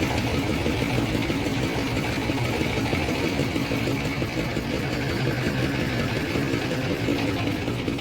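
Motorised river boat's engine running steadily at a low, even pitch.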